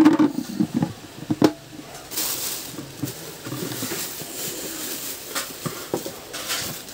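Plastic hotpot and its lid being handled: a couple of sharp knocks in the first second and a half, then light rustling of the clear plastic wrapping with a few small clicks.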